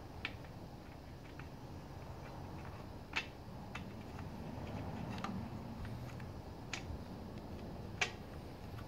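Spark plug being screwed in by hand into a gas string trimmer's cylinder head: a few light, scattered metallic clicks over a low background hum, the sharpest about eight seconds in.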